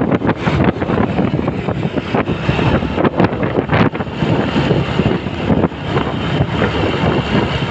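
Gusty wind buffeting the phone's microphone over the steady rumble of a moving car and nearby motorbike traffic.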